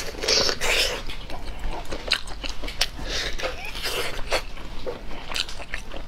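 Close-miked biting and chewing of a piece of braised meat, a run of short clicks and noisy mouth sounds.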